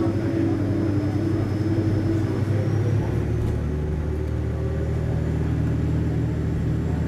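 Diesel railcar's engine running, heard from inside the passenger cabin, with a steady rumble; about three seconds in the engine note changes and its low hum gets heavier.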